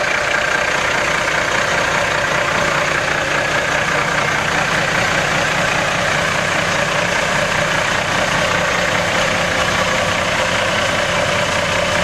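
Kenworth W900L semi truck's diesel engine idling steadily.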